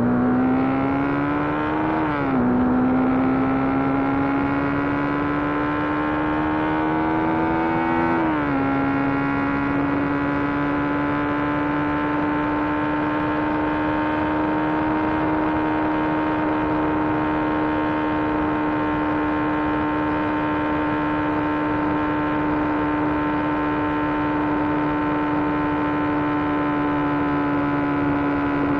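Motorcycle engine pulling through two upshifts: its pitch climbs and drops suddenly at each shift, about 2 and 8 seconds in, then holds a steady note at cruising speed.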